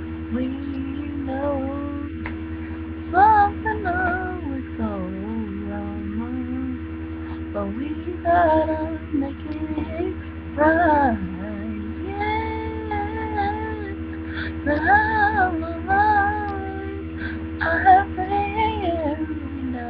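A young woman singing solo in phrases, with bending and held notes, over a steady low electrical hum.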